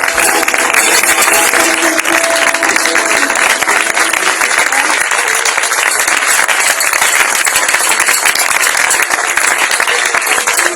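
Audience applauding, a dense, steady clapping, with the last of the music fading under it in the first few seconds.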